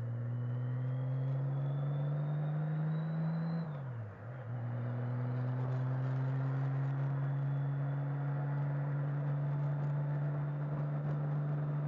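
Motorcycle engine under way, climbing in pitch as it accelerates, then a brief dip and drop in pitch about four seconds in as it shifts up, and holding a steady pitch at cruising speed after that.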